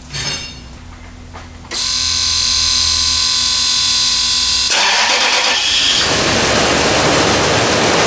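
Toyota 2UZ-FE 4.7-litre V8 cranked on the starter with a steady whine for about three seconds, then firing and running. This is the first start after a timing belt replacement on an engine that had been cranking without starting.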